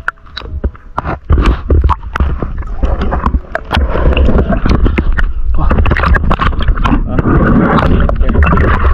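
Water sloshing and gurgling around a camera as it goes under the surface and comes back up, with many sharp knocks and clicks from handling in the water. The sound grows louder and more continuous after the first second or so.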